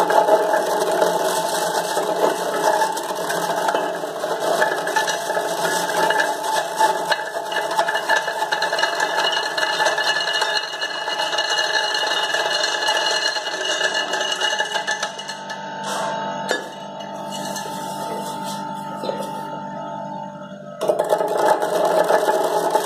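Electric stainless steel fruit juice extractor running as whole fruit is pushed into its feed chute and ground up, a continuous mechanical grinding. The sound eases for a few seconds past the middle, then comes back loud near the end as more fruit is pressed in.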